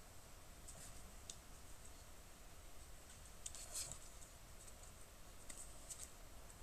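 Faint, scattered small clicks and crackles while a small stick is lit by hand with a lighter, a little busier about three and a half seconds in.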